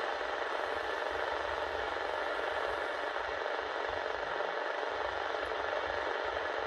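Steady static hiss from a President Johnny II CB radio's speaker, the receiver's background noise on an empty channel between transmissions.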